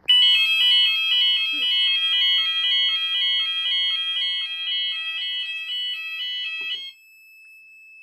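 Fire alarm sounders on a Gent Xenex system going off with a loud, fast two-tone alternating alarm, about two high-low cycles a second, set off by an Apollo S65 smoke detector going into alarm. The alarm cuts off about seven seconds in, leaving a faint steady tone for another second.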